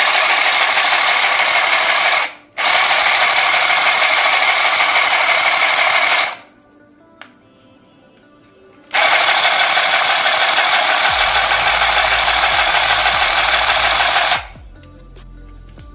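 Battery-powered handheld mini sewing machine running, a loud rapid clatter as it stitches through a cotton handkerchief. It stops for a moment about two seconds in, pauses for a couple of seconds around six seconds in, runs again, and stops near the end.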